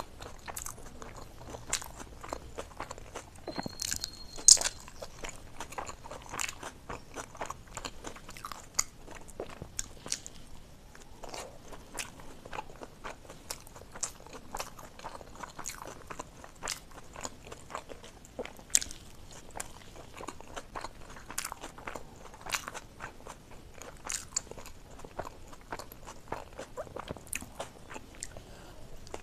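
Close-miked eating sounds of a person chewing soft momo dumplings: many short, wet mouth clicks and smacks, with the loudest click about four and a half seconds in.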